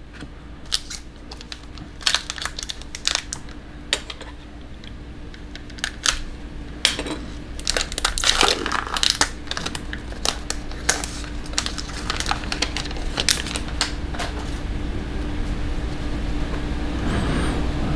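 Plastic trading-card pack wrapper being torn open and crinkled as cards are worked out of it, with irregular sharp crackles and rustles.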